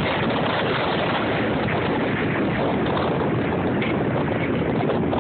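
Strong wind buffeting the microphone over the steady roar of storm surf.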